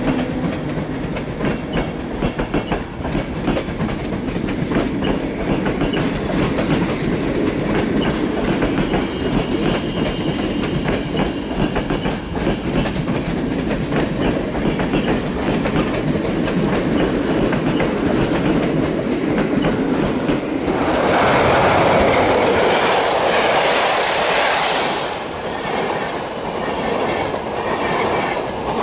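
Locomotive-hauled passenger train passing close by: the coach wheels clatter over rail joints in a steady run of clicks. About twenty seconds in, the sound changes abruptly to a louder rushing passage of a train crossing a steel truss bridge.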